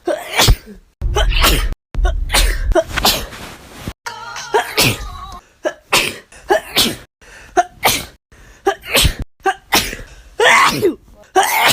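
A person's sneezing fit: one sneeze after another in quick succession, with sharp breaths between them. The sound drops out abruptly several times where the edited clips are joined.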